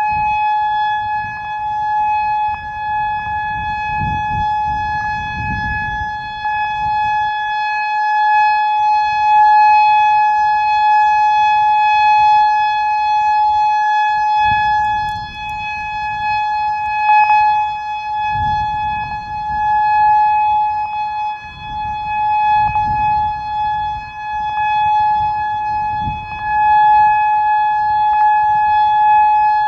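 Whelen 3016 electronic outdoor warning siren sounding a steady, unwavering alert tone during a siren test. Low rumbles come and go underneath it.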